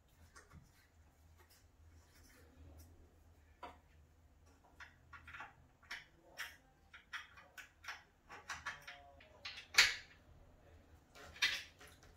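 Scattered small clicks and knocks from hands working at the joints of a flat-pack oak-effect wooden table frame during assembly, with a sharper knock about ten seconds in.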